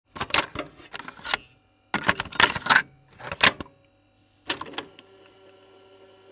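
Clicking and crackling sound effect for glitching title text, in four short bursts, followed by a faint steady hum.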